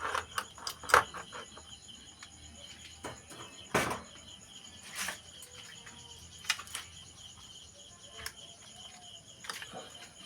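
Scattered clicks and knocks of wires and parts being handled while a 48 V e-rickshaw battery charger is connected up, the loudest about a second in and near four seconds in, over a steady high-pitched background whine.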